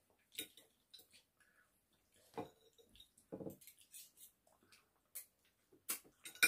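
Faint eating sounds: scattered soft clicks of a metal fork and spoon against a plate, with quiet chewing of noodles.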